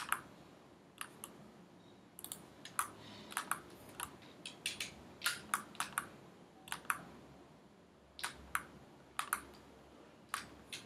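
Irregular clicks from a computer mouse and keyboard at a desk, some coming in quick pairs.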